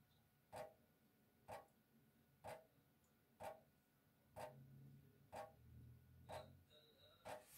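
A leaking kitchen faucet dripping: single water drops fall into a stainless steel sink as faint, regular plinks, about one a second, eight in all.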